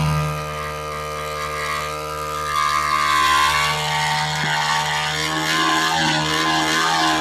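Air-cooled motorcycle engine running. It revs up about two and a half seconds in, with the pitch climbing, then settles to a steadier speed.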